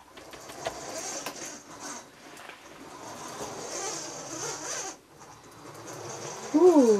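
Sphero BB-8 toy robot's small drive motors whirring as it rolls across a wooden parquet floor, dropping off briefly about five seconds in. Near the end a short, loud, pitched chirp rises and then falls.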